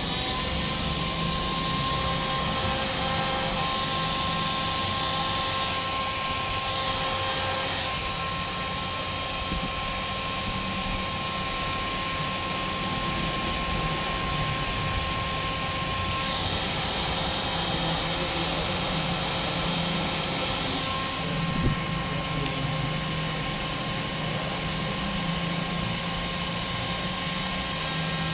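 Hand-held hot-air blower, a hair-dryer-like heat gun, running steadily with an even rush of air and a constant motor whine, heating the solder of a phone's charging connector.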